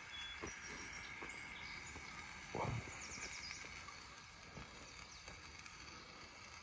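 Campfire just lit with a pull-start fire starter, crackling faintly with scattered small pops, and one louder knock about two and a half seconds in.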